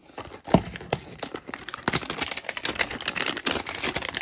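A knock about half a second in, then a dense crackle of clear plastic wrapping being crinkled and pulled off a trading-card hanger box.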